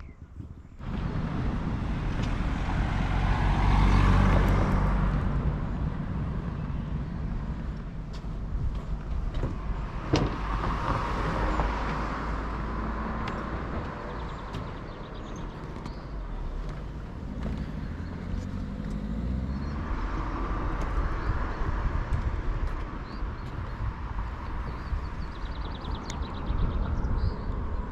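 Road vehicles passing one after another, each rising and fading, the loudest about four seconds in, with further passes around eleven and twenty seconds.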